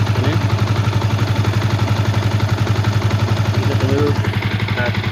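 Yamaha Vixion's single-cylinder four-stroke engine idling steadily with a rapid, even pulse. The engine is new, and its owner finds it noisy.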